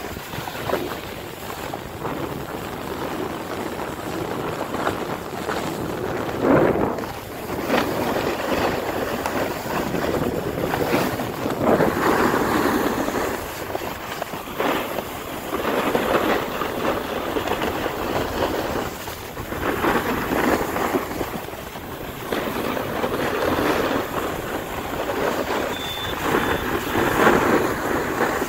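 Skis and snowboard scraping and swishing over packed snow while sliding downhill, the rush swelling and fading every few seconds, with wind rushing over the microphone.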